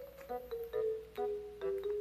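Background music: a light melody of short struck, pitched notes, about three or four a second.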